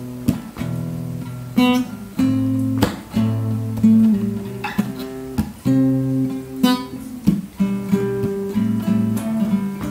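Background music: acoustic guitar playing slow chords, with sharp strums about every second or so between held, ringing notes.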